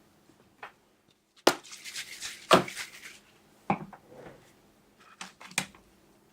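A series of sharp taps and clicks from objects being handled, with a hissing rustle between about a second and a half and three seconds in.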